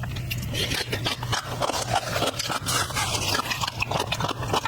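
A person chewing food close to the microphone: dense, irregular wet smacking and clicking mouth sounds.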